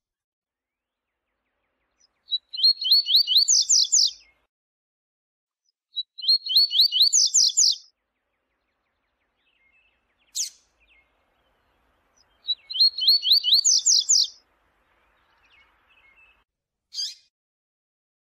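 Double-collared seedeater (coleiro) singing the 'viu-tiu' song type: three phrases of about two seconds each, each a fast run of notes that climbs in pitch toward its end. A single sharp chip sounds twice between the phrases.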